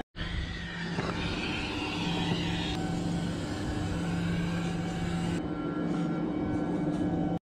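Steady drone of running chiller machinery with a constant low hum, and a hiss over it for the first five seconds or so.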